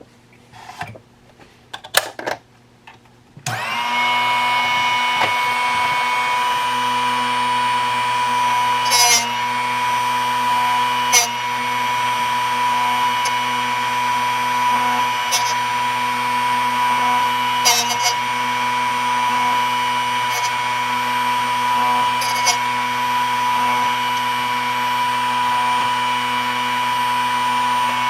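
A few clicks of handling, then the Drill Doctor XPK drill bit sharpener's motor switches on about three and a half seconds in and runs steadily with a constant whine. Several brief scrapes and clicks, with short dips in the motor's pitch, mark the drill bit being ground against the sharpening wheel.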